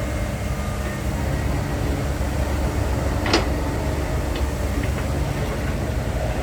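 Heavy diesel machinery running steadily with a low rumble, with one brief sharp noise about three seconds in.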